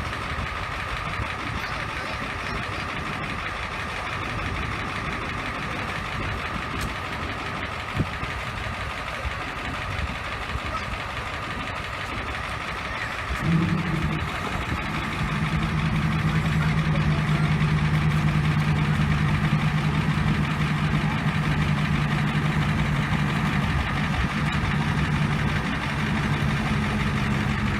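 A steady motor running under a noisy background. About halfway through, a deeper, louder steady drone starts abruptly and keeps going.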